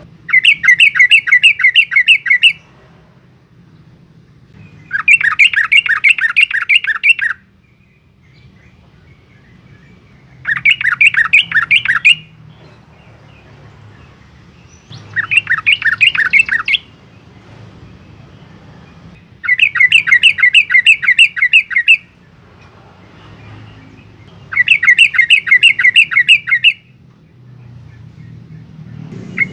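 Yellow-vented bulbul (trucukan) singing loud, fast chattering phrases, six bursts of about two seconds each, roughly five seconds apart, with a faint low hum in the gaps.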